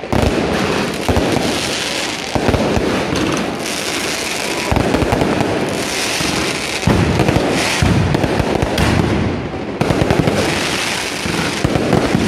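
Beehive rocket fortress firing: a dense, unbroken barrage of bottle rockets and firecrackers, with rapid overlapping bangs and crackling that never let up.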